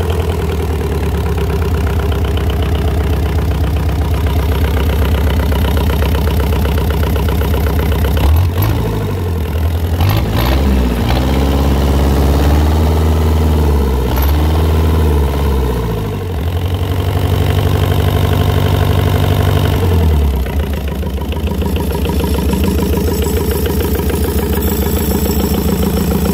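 Kubota 1732 cc four-cylinder diesel engine running steadily at idle, not long after a cold start.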